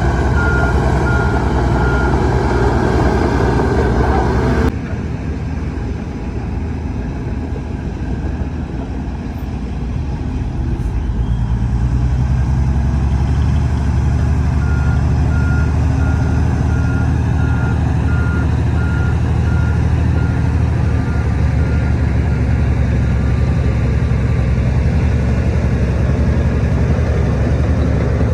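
Heavy diesel earthmoving machinery running steadily, a bulldozer and dump trucks, with a backup alarm beeping in short regular pips, briefly near the start and again for several seconds in the middle. The sound changes abruptly about five seconds in.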